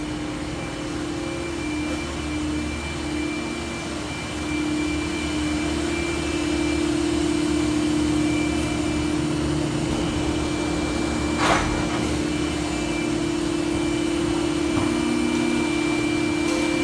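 130-ton plastic injection molding machine running: a steady hum with a faint high whine above it, getting louder about four seconds in. A short hiss about eleven and a half seconds in.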